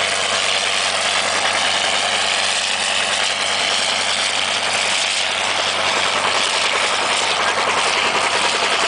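John Deere 4320's turbocharged six-cylinder diesel running steadily under heavy load as it pulls a moldboard plow through the ground.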